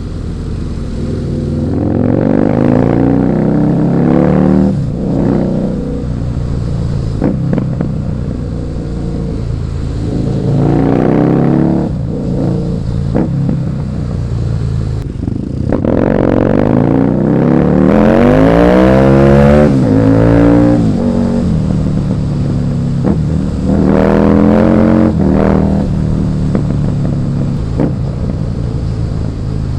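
Husqvarna Nuda 900R's 900 cc parallel-twin engine accelerating hard four times, its pitch climbing through each pull and dropping back in between. The longest, loudest pull comes around the middle.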